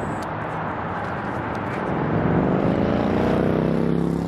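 Steady highway traffic noise. About halfway through, a passing truck's engine grows louder, rising slightly in pitch, then cuts off suddenly.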